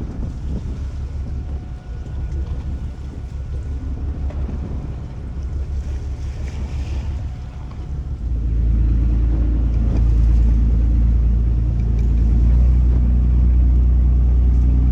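Wind buffeting the microphone on a fishing boat. About eight seconds in, the boat's engine comes up and runs with a steady low drone that becomes the loudest sound.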